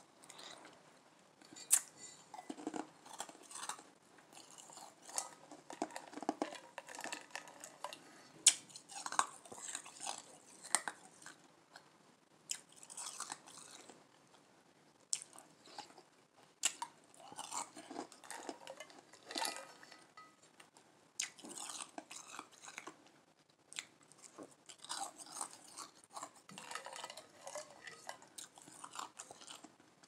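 Soft Igloo ice being crunched and chewed close to the microphone, in irregular runs of crunches with short pauses between mouthfuls and a few sharp clicks.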